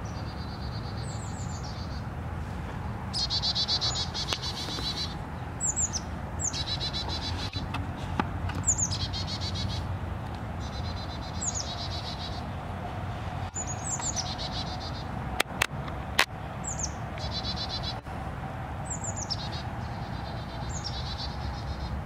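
A small songbird singing the same phrase over and over, every two to three seconds: a high whistle that slurs downward, then a buzzy trill. A low steady rumble runs underneath, and two sharp clicks, the loudest sounds, come about two-thirds of the way through.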